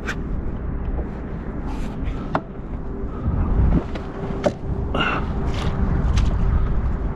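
Wind rumbling on the microphone aboard a kayak, with a faint steady hum and a few sharp clicks and knocks of gear, the clearest about two and four and a half seconds in.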